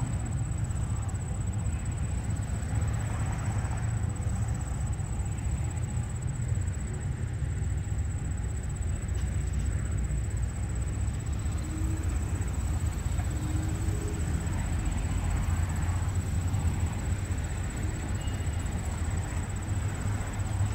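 Steady low rumble of a train's diesel locomotive running, with no horn or bell.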